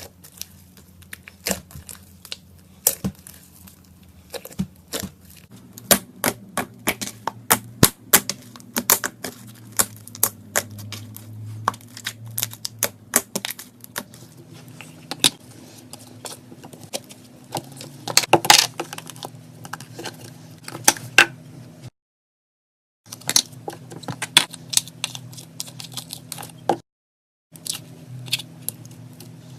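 Slime being squished and mixed, giving a dense run of sharp crackles and clicks. The sound cuts out completely twice in the second half.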